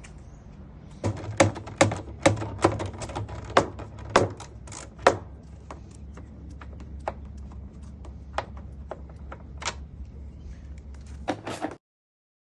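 Hand tools knocking and clanking on the metal parts of a washing machine drum as it is taken apart: a run of sharp, irregular knocks, thickest in the first few seconds, over a low steady hum. The sound cuts off suddenly near the end.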